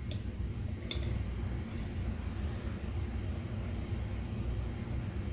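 Steady low hum on the test bench, with two light clicks about a second apart near the start as the 1959–1960 Oldsmobile headlight switch's knob is turned to dim the dash lights.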